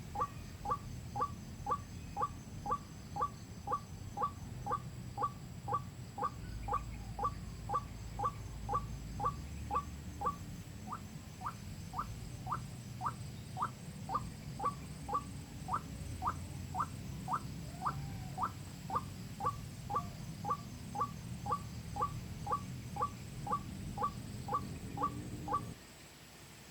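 Recorded calls of a white-breasted waterhen (ruak-ruak) played from a phone as a hunting lure: a steady, evenly spaced series of short calls, about two a second. The recording cuts off suddenly near the end.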